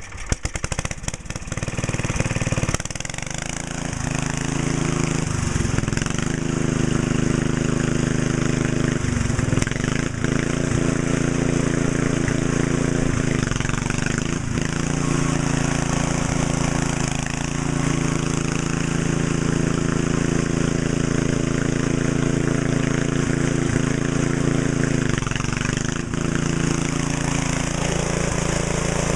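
1968 Sears 10 XL garden tractor's engine starting up in the first second, then running steadily as the tractor is driven, its note dipping and picking up again with the throttle several times.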